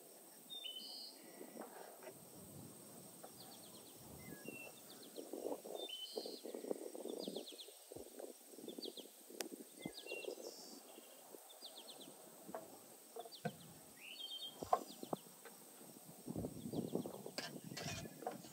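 Small birds chirping repeatedly outdoors over quiet cooking sounds: a knife slicing raw chicken breast on a wooden cutting board, then a wood fire burning in a stone oven with scattered sharp crackles.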